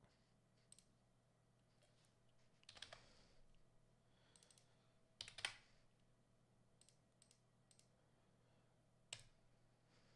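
Faint computer mouse and keyboard clicks, scattered and irregular, including a short run of keystrokes about three seconds in and a sharper click near the end, over a low steady hum.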